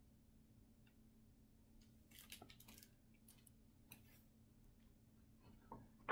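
Quiet rustling of paper pages as a hardcover picture book is handled and its pages turned, with a cluster of soft rustles about two seconds in and another brief one near four seconds.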